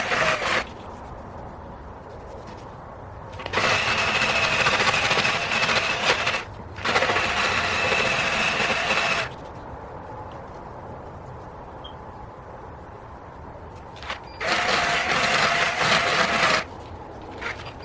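A power drill spinning a conical grinding bit, cutting curb-rashed aluminum off a wheel rim in several bursts of a few seconds each, with a steady high whine over the grinding noise. Between the bursts there is a quieter steady hum.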